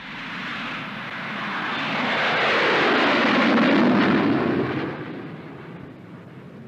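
Harrier GR1 jump jet's Pegasus turbofan roaring as the jet makes a short rolling takeoff down a carrier deck past the listener. The roar swells to its loudest about three to four seconds in, then fades as the jet climbs away.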